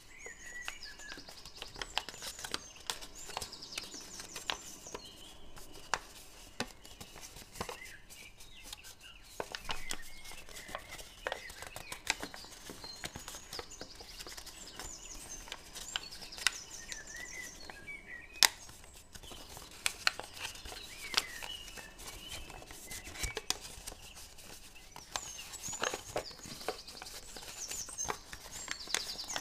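Thin origami paper being folded and creased by hand, crinkling and crackling in many short sharp snaps, with birds chirping in the background in several short spells.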